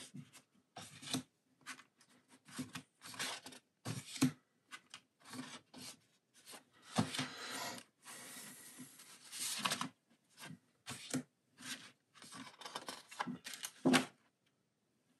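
Paper art prints being handled and moved through a stack: a run of short paper rustles and slides, with a longer stretch of paper rubbing over paper about seven to ten seconds in.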